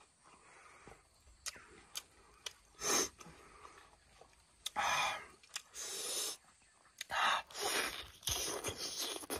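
Eating sounds of a man eating rice and pork by hand: small wet clicks and lip smacks, and short sharp breaths through the mouth. From about two-thirds in, a denser run of biting and chewing comes as he bites into a piece of pork.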